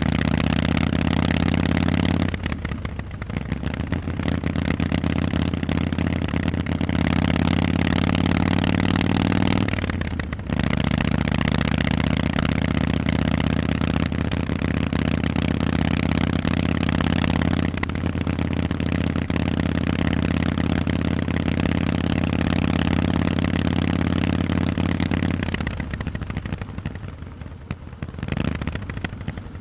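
Harley-Davidson Forty-Eight's 1200 cc air-cooled V-twin running loud through Vance and Hines exhausts while riding. The engine note breaks off briefly about two seconds and about ten seconds in, and drops away near the end with one short blip of throttle.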